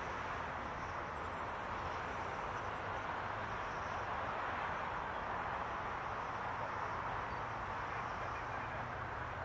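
Steady jet roar of a climbing Boeing 747-8F freighter's four GEnx-2B turbofans after takeoff, heard from a distance as it flies away, with an even, unchanging level.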